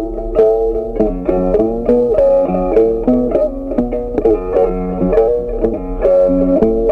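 Background music: a plucked-string tune of quick picked notes.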